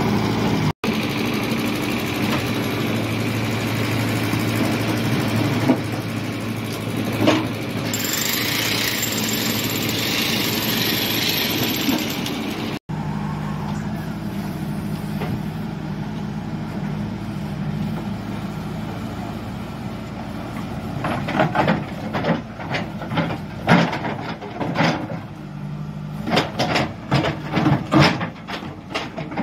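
JCB 3DX backhoe loader's diesel engine running steadily as it digs. In the last several seconds, a rapid series of knocks and clanks as the bucket digs into brick rubble and soil.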